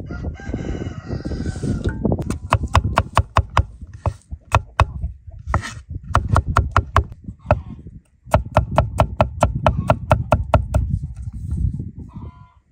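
A rooster crows once at the start. Then comes rapid knife chopping on a board, about six strikes a second, in several runs with short pauses.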